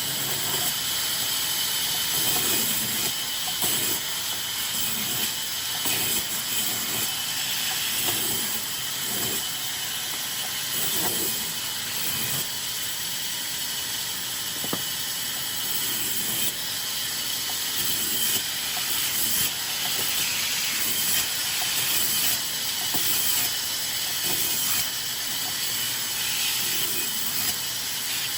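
Sawmill machinery cutting raw wood: a steady, loud hissing noise with softer low pulses about once a second, swelling and dipping.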